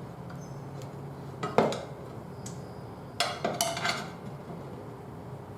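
Metal tyre-changing tools clanking against a steel spoked motorcycle wheel while a tyre is being refitted. There is one sharp clank about a second and a half in, then a cluster of clanks with a brief metallic ring around three to four seconds in.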